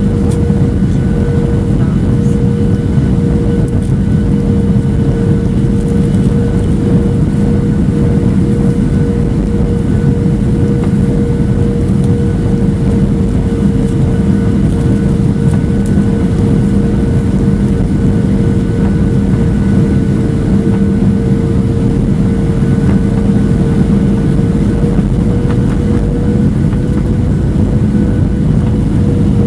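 Inside the cabin of a Boeing 737-700 on final approach, beside the wing: the steady noise of its CFM56-7B turbofan engine and the rushing air, with a steady humming tone whose pitch edges up slightly near the end.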